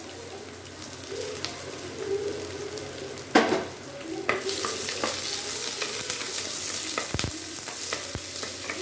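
Freshly added sliced onions sizzling in hot oil in a clay pot, stirred with a wooden spatula. A sharp knock comes about three and a half seconds in, and the sizzle grows louder after it.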